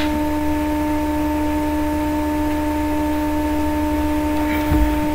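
Steady electrical hum with a pitched buzz and its overtones over a low rumble, with a few soft low thumps near the end.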